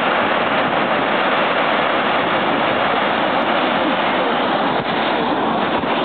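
Steady, loud rush of the Gullfoss waterfall pouring into its gorge.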